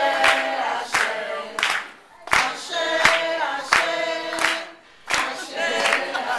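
A group singing a chant together in short phrases, with steady hand clapping about every two-thirds of a second.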